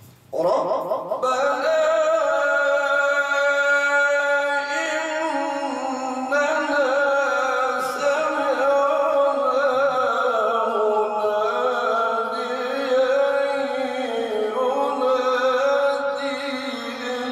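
A man's melodic Quran recitation into a microphone. It starts about half a second in, and he holds long notes with wavering ornaments.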